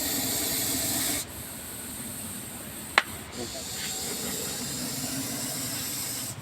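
Russell's viper hissing in long breaths as a defensive warning: a loud hiss that breaks off about a second in and starts again after about three seconds. A single sharp click comes just before the hiss resumes.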